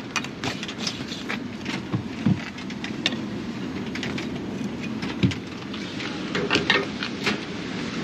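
Wind buffeting the microphone in a steady rumble, with scattered small clicks and a couple of knocks as the coffee tamper and espresso portafilter are handled.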